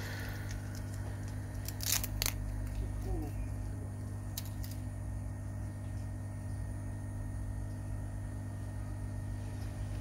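Steady low electrical hum from bench equipment, with a few small sharp clicks about two seconds in and again a little later as a tiny phone charging-port connector is picked out of its clear plastic tray.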